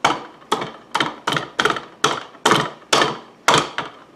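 A hard plastic travel mug knocking against a desk again and again, about two sharp knocks a second, each fading quickly.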